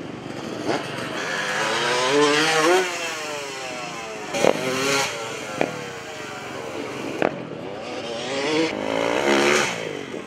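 Motocross dirt bike engines revved hard for freestyle jumps, the pitch climbing to a peak and then falling away, twice. A few sharp clicks come in the middle.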